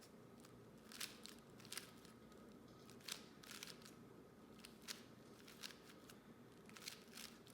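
4x4 Rubik's cube being turned through a parity algorithm: faint, irregular clicks and scrapes of the plastic layers turning, one or two a second.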